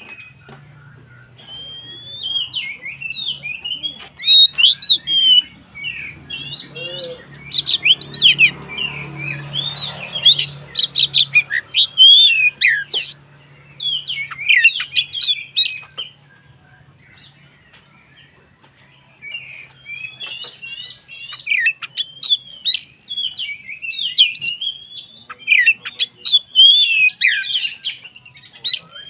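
Oriental magpie-robin (kacer) singing in loud bursts of rapid, varied whistles and sharp chattering notes, with a pause of a few seconds past the middle before the song resumes.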